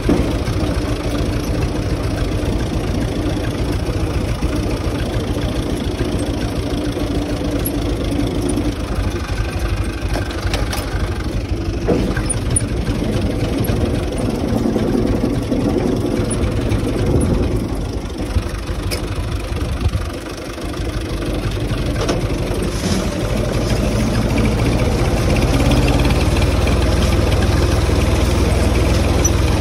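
UTB 445 tractor's diesel engine running steadily, easing off briefly past the middle and running louder near the end.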